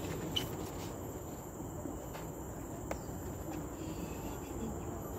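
Steady, high-pitched drone of insects, made of two continuous thin tones, one above the other. A couple of light clicks sound about half a second and three seconds in.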